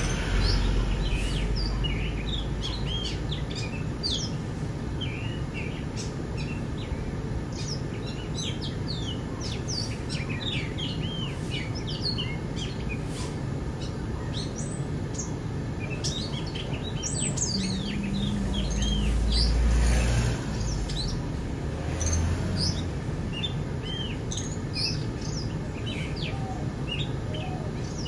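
Many wild birds chirping and calling in quick, short notes throughout, over a steady low rumble that swells briefly near the start and again about two-thirds of the way through.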